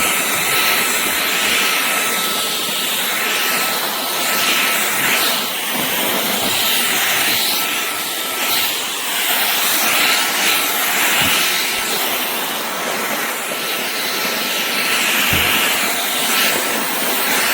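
Shark Clean & Empty cordless stick vacuum running: a steady rushing of suction with a thin, constant motor whine, the hiss swelling and easing as it moves.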